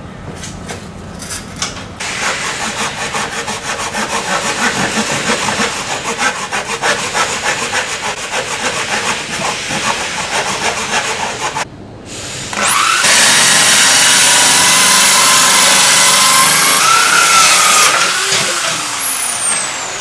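Handsaw cutting a thin wooden board with quick, even strokes for about ten seconds. Then a corded drill with a hole saw spins up with a rising whine, runs steadily while boring a round hole in the board, and winds down with a falling whine near the end.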